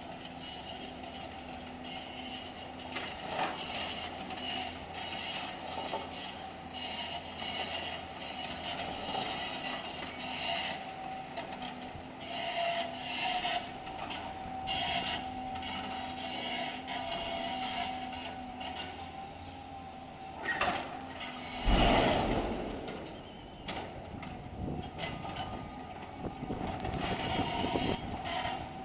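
Caterpillar 365C demolition excavator at work: its engine runs with a steady whine while its steel parts scrape and grind against concrete rubble in repeated strokes. A heavy crunching thump comes about two-thirds of the way through.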